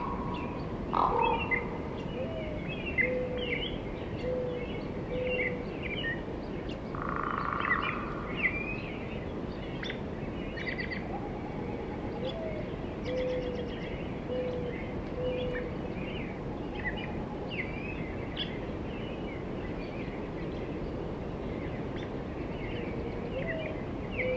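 Woodland birdsong: many small birds chirping and singing, with a run of four or five low, evenly spaced notes from another bird twice, over a steady background hiss.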